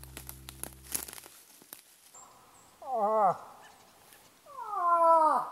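A hunter's imitation of a cow moose call, voiced through hands cupped at the mouth to lure a bull. Two nasal calls: a short one that rises then falls, about three seconds in, and a longer one falling in pitch near the end.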